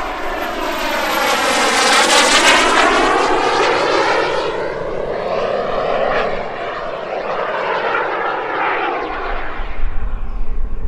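The turbine of a giant-scale F-104 Starfighter model jet, a JetCat P300, flying past with a jet hiss and a thin high whistle that falls slightly in pitch. It is loudest about two seconds in, then eases off as the jet moves away. Near the end, wind rumbles on the microphone.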